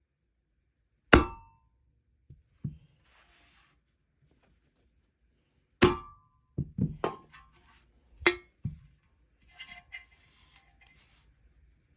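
Metal being struck with a rock, giving sharp clangs with a short metallic ring: a single blow about a second in, then a rapid run of five or six blows in the second half, followed by faint scraping.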